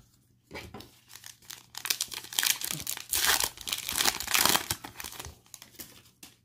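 Foil wrapper of a 2020 Panini Mosaic football card pack being torn open and crinkled by hand. It is loudest in the middle and dies away near the end.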